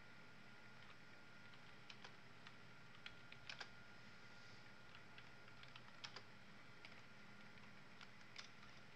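Faint, irregular clicking of computer keyboard keys, a dozen or so scattered presses, over a steady faint high-pitched electrical whine.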